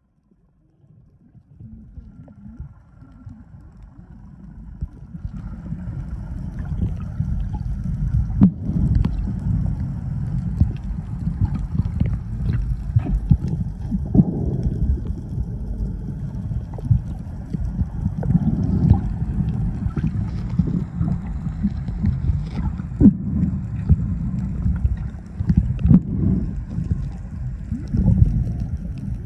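Muffled underwater noise picked up by a submerged phone: a steady low rumble with scattered clicks and knocks. It starts almost silent and builds over the first few seconds.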